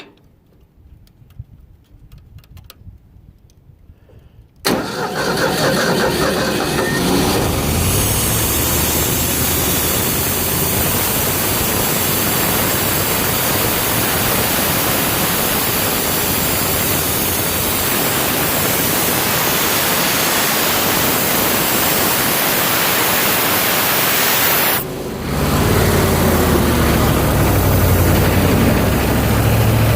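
Ford 302 V8 driving a homemade air compressor starts abruptly about five seconds in and runs steadily. Its sound dips for a moment near the end, then carries on running.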